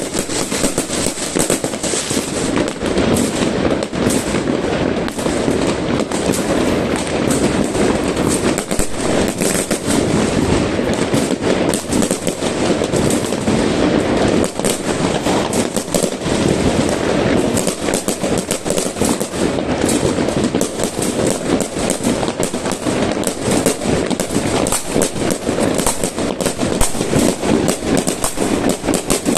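Many fireworks and firecrackers going off at once: a dense, unbroken crackle of rapid bangs over a steady rumble of more distant explosions.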